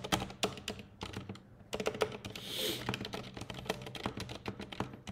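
Typing on a computer keyboard: quick, irregular runs of key clicks, thinning briefly a little after a second in, over a faint low steady hum.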